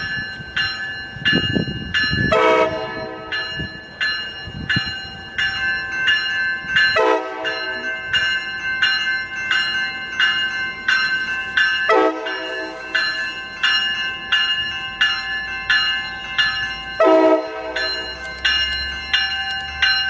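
Railroad grade-crossing warning bell ringing steadily at about two strikes a second. A louder, lower tone sounds about every five seconds, and a low rumble from the passing Amtrak California train joins near the end.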